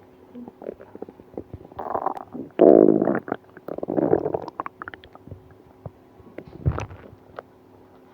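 Stomach gurgling and rumbling in a run of wobbling bursts, the loudest about two and a half seconds in, then a short low gurgle near the end. The stomach is upset and painful after eating ice cream.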